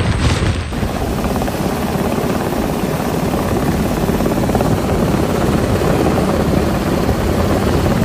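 Rescue helicopter's rotor and engine noise, loud and steady, coming in suddenly less than a second in.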